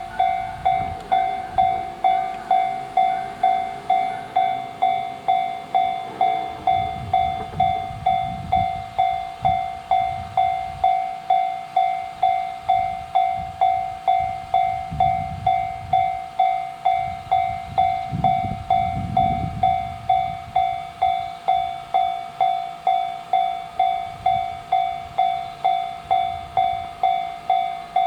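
Level-crossing warning bell ringing, a steady electronic 'kan-kan' of about two strokes a second. A low rumble swells and fades a few times in the middle.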